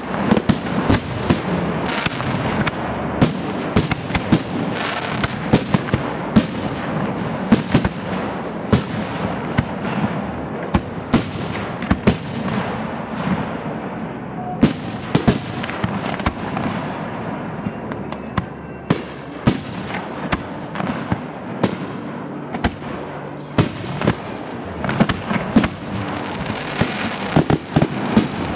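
Aerial fireworks display: shells bursting in a rapid, irregular series of sharp bangs, several a second at times, without a break.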